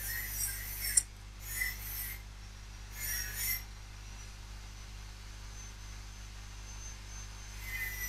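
Neighbour's angle grinder heard through the wall, a high-pitched grinding screech coming in short bursts: three in the first few seconds and another starting near the end. There is a sharp click about a second in.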